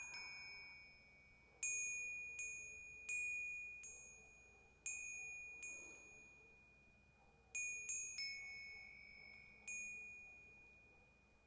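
Metal chimes struck one at a time at an uneven pace, about nine clear high-pitched strikes on two or three notes, each ringing out and fading over a second or two.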